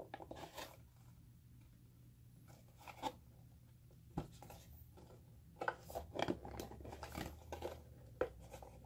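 Retail camera packaging being handled and opened: scattered light clicks, scrapes and rustles of plastic and cardboard, sparse at first and busier in the second half.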